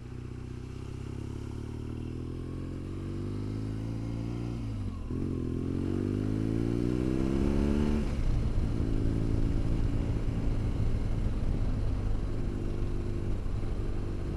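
BMW R1200GS's boxer twin engine accelerating: its pitch rises, drops at a gear change about five seconds in, rises again, then holds steady at a cruise from about eight seconds in.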